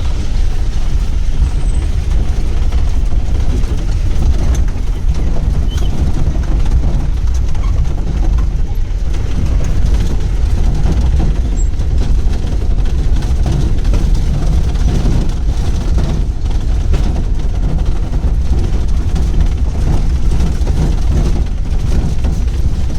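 Pickup jeep driving on a rough dirt track: a steady low rumble of engine and wheels, with frequent short rattles and knocks from the jolting ride.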